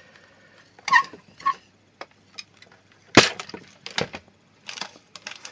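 Handling noise from hands working a jack plug and its cable in a subwoofer's socket: a few scattered sharp knocks and clicks, the loudest about three seconds in, with two short squeaks about a second in.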